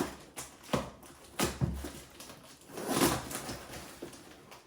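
Cardboard boxes and packaging being handled and opened: a few separate rustles and knocks, the loudest about three seconds in.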